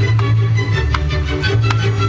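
Loud music with a heavy bass line, with a few short sharp firework cracks mixed in.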